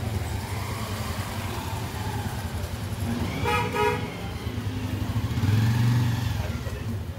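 Road traffic running steadily, with a vehicle horn honking once for about half a second midway, and a vehicle passing louder near the end.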